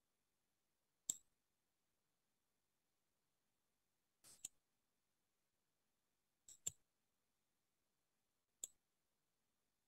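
Near silence broken by four short, faint clicks a couple of seconds apart, two of them doubled.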